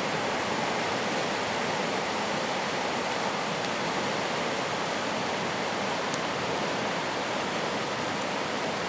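Swollen Pedernales River rushing past after a flood, a steady even roar of fast-flowing water.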